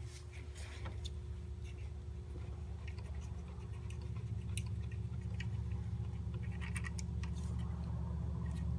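Faint metallic scrapes and small clicks as the remaining VANOS mounting bolts are unscrewed by hand, over a steady low hum.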